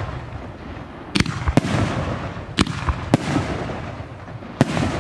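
Aerial firework shells going off: five sharp bangs, two of them in quick pairs, each trailing off in a rolling echo.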